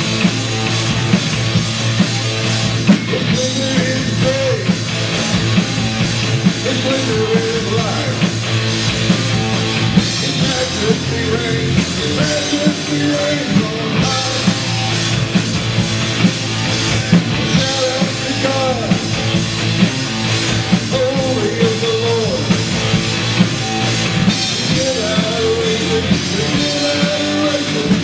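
Rock band music: a drum kit keeps a steady beat under a full band, with a melody line that bends in pitch and repeats in phrases.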